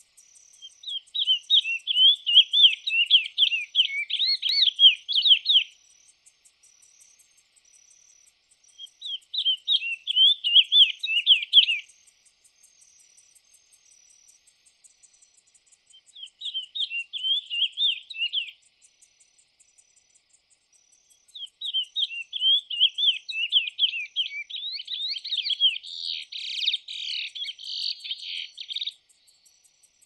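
Lesser seed finch (curió) singing: four loud phrases of fast warbling notes, each a few seconds long and separated by short pauses, the last phrase the longest.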